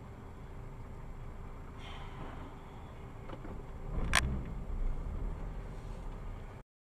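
Steady vehicle road noise, then one sharp bang about four seconds in, typical of a car collision, followed by heavier rumbling; the sound cuts off suddenly near the end.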